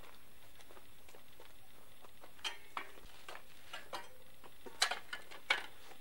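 A handful of irregular footsteps scuffing on packed earth and brick, beginning about two and a half seconds in. The two sharpest steps come near the end.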